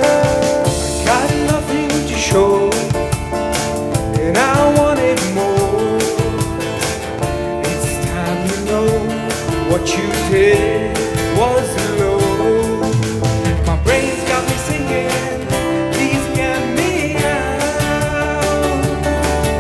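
Live band music: a singer over guitar and drums.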